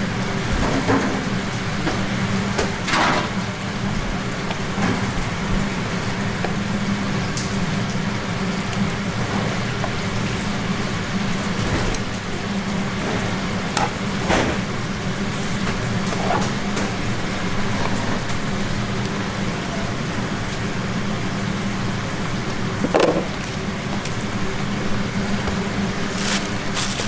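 Steady hiss and low hum of a street-food stall kitchen, with scattered clinks and knocks of utensils on cups and a steel counter. Near the end a plastic lid and bag rustle as a cup of chicken gangjeong is packed.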